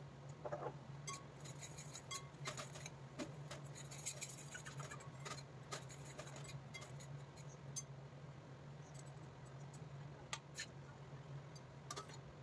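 Steel spatula scraping and clinking against a stainless steel kadai as masala paste is stirred, many faint light clicks at an uneven pace over a steady low hum. Near the end a steel lid clinks down onto the pan.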